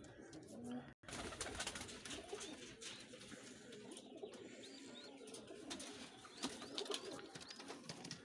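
Teddy pigeons cooing, faint and continuous, with scattered sharp clicks. The sound drops out for an instant about a second in.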